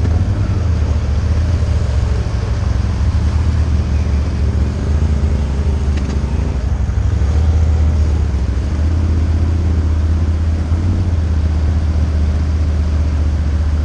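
ATV engine running steadily at low speed with a constant low drone, heard from the rider's seat.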